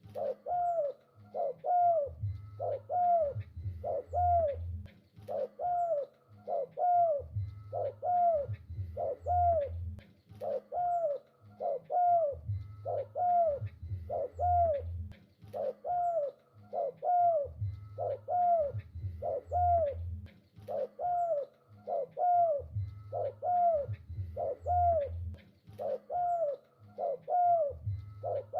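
Spotted dove (tekukur) cooing over and over in a steady rhythmic series, about three arched coo notes every two seconds with deep low notes recurring beneath.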